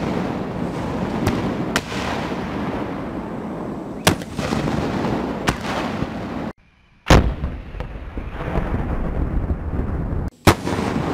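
SMAW shoulder-fired rockets launching: a series of sharp blasts, each trailing off in a long echo, with fainter bangs between them. The two loudest blasts come about seven and ten and a half seconds in, each right after a brief drop to near silence.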